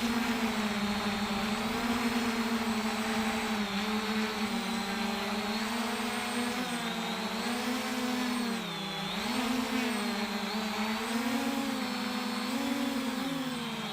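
JJRC X1 quadcopter's brushless motors and propellers whining in flight, heard through the onboard camera. The pitch holds fairly steady and sags three times, about halfway through, again just after, and near the end, before picking back up.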